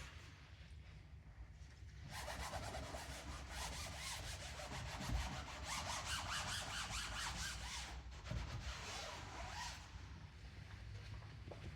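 Quick back-and-forth rubbing strokes on the PVC tube of an inflatable boat, starting about two seconds in and easing off about ten seconds in.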